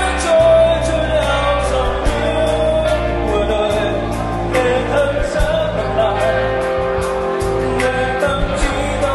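A live rock band playing, with a singer's voice over electric guitars, bass and drums and a regular ticking of cymbals.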